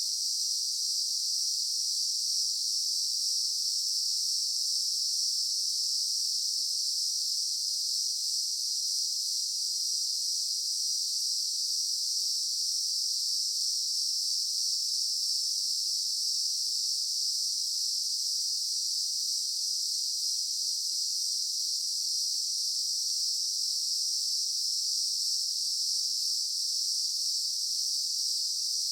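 Daytime insect chorus: a steady, unbroken high-pitched buzz that holds at an even level throughout.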